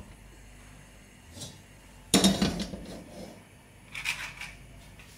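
Metal karahi set down on a gas stove's grate: one clank of metal on metal about two seconds in, with lighter knocks before and after.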